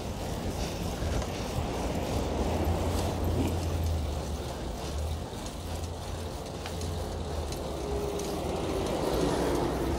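Riding noise from a fixed-gear bicycle in city traffic: a steady low rumble of wind and road with light ticking. A motor vehicle's engine rises near the end.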